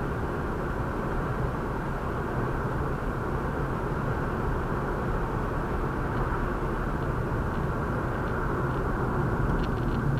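Steady road and engine noise of a car driving at speed, heard from inside the cabin, with a few faint clicks near the end.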